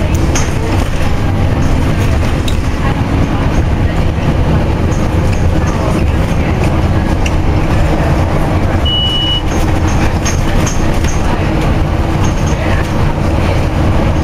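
Scania OmniCity double-decker bus under way, its diesel engine and drivetrain a steady low rumble heard from inside the lower deck, with light rattling from the interior fittings. A brief high beep sounds about nine seconds in.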